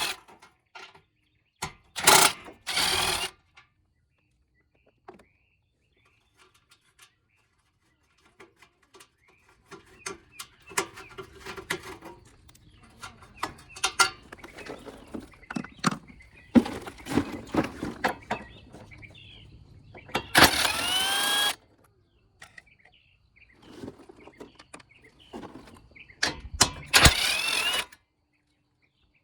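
Work sounds of a car's front end being taken apart: clicks, knocks and rattles of tools and plastic and metal parts. Three short, louder noisy bursts come about two seconds in, about twenty seconds in (the loudest) and near the end.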